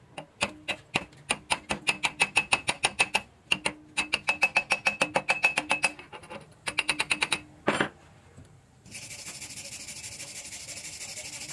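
Chipping hammer tapping slag off a stick-weld bead in three runs of rapid metallic taps, about six a second. About nine seconds in, a steel wire brush scrubs the bead with a steady, high-pitched scratching.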